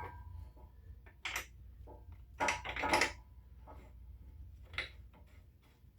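A few short metallic clanks and rattles of tools and hardware being handled while an engine mount is fitted, over a low, steady shop hum.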